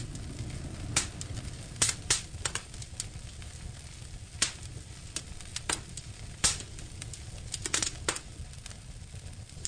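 Firewood crackling in the firebox of a brick Dutch-style stove with a built-in fireplace: a dozen or so irregular sharp pops over a low steady rumble of the fire.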